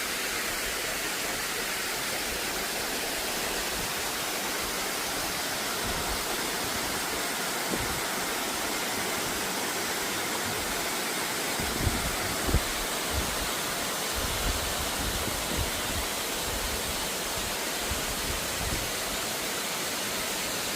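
Mountain valley stream water rushing steadily over rocks, an even waterfall-like hiss. A few short low thuds break in about midway.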